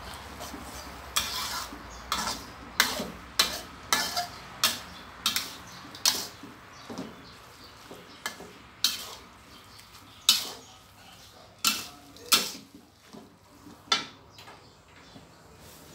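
Metal spatula scraping and clacking against a stainless steel wok while stir-frying glass noodles, over a low sizzle. The strikes come irregularly, about two a second at first, and thin out in the last few seconds.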